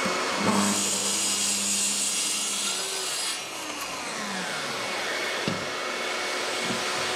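Bosch plunge track saw crosscutting a sheet board: the blade runs through the wood for about three seconds, then the motor winds down with a falling whine. A dust extractor keeps running underneath, with a couple of knocks near the end.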